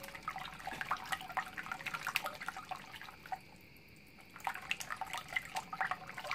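Thin pancake batter being stirred in a large bowl, with small liquid splashes and drips and a short pause about three seconds in.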